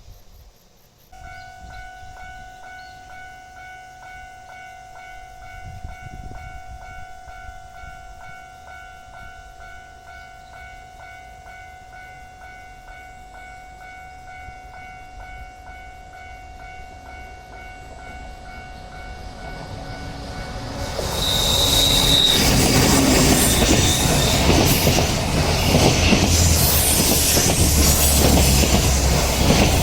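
Japanese level-crossing warning bell starts about a second in and rings steadily with a fast regular beat. About three-quarters of the way through, a train reaches the crossing and passes loudly on the rails, with a brief high wheel squeal and a deep rumble near the end.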